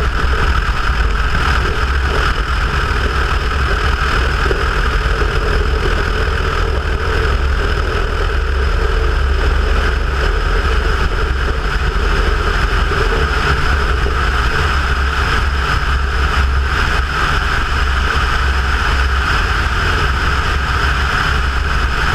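Cessna 172's piston engine and propeller running steadily.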